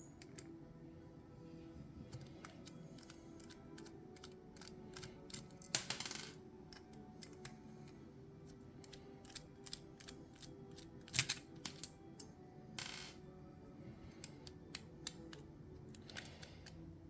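Small metallic clicks, taps and a couple of short scrapes from a brass lever lock and small tools being handled, over a faint steady hum.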